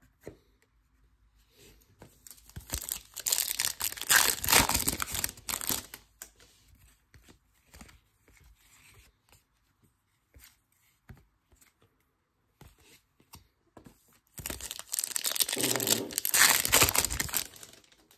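A foil trading-card pack wrapper being torn open and crinkled, in two bouts of a few seconds each, with faint clicks of cards being handled in between.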